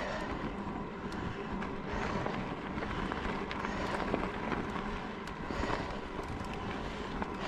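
E-bike riding along an unpaved forest track: tyres rolling with scattered small ticks from the ground, a faint steady hum, and wind on the microphone.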